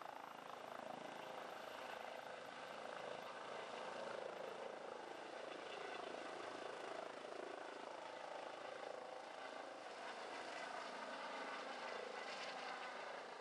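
Trauma helicopter's rotor and turbine running steadily as it lifts off and climbs away.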